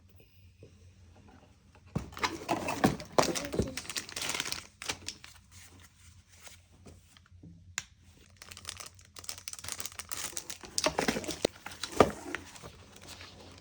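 Packaging being handled: crinkling and rustling in two stretches, with a few sharp clicks.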